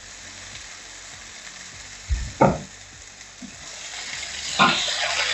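Diced potatoes sizzling as they fry in a pan on a low flame, with a couple of knocks about two and a half seconds in and another near the end. The sizzle and stirring grow louder over the last second.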